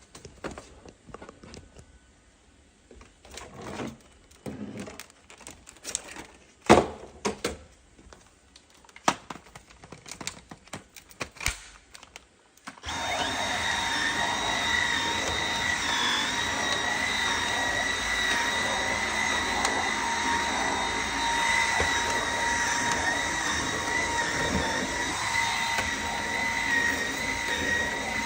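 Scattered clicks and knocks, then about halfway through a Dyson V8 cordless stick vacuum switches on abruptly and runs steadily, a rushing of air with a steady whine.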